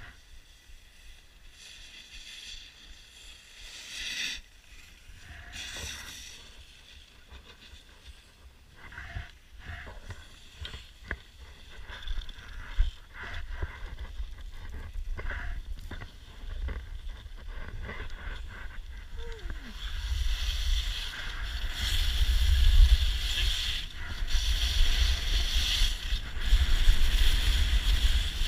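Skis scraping and hissing over packed snow, with wind buffeting the camera microphone; it gets louder about two-thirds of the way through.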